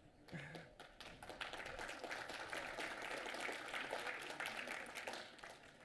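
Audience applauding, a fairly faint patter of many hand claps that picks up about a second in and dies away near the end.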